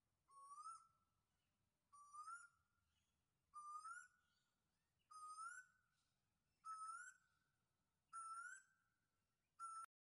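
African grey parrot giving the same short rising whistle over and over, about once every one and a half seconds, seven times. The last call is cut off abruptly.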